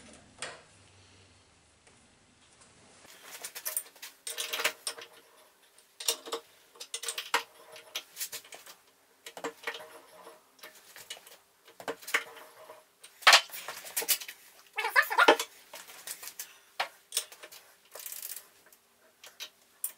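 Irregular metal clinks and knocks of hand tools and machine handles on a metal shaper's table and tool head during setup, several ringing briefly. They start about three seconds in, and the two loudest knocks fall a little past the middle.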